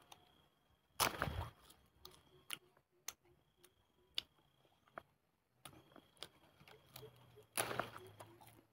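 A person chewing a mouthful of raw wild leaves with the mouth closed: faint wet clicks and smacks, with two brief louder rustling bursts, about a second in and near the end.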